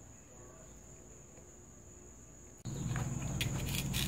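A faint, steady high-pitched tone over quiet room noise. Nearly three seconds in, the sound jumps louder with a low hum, and a few sharp clicks follow as a rabbit starts nibbling a piece of peach on newspaper.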